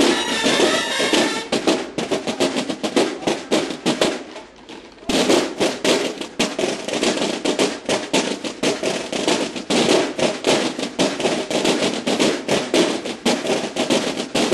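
Mexican banda de guerra drums and bugles playing a fast military-style routine. Bugles sound over the drums in the first second or so, then the drums carry on alone in rapid, rhythmic strokes. They drop away briefly about four and a half seconds in and come back loudly.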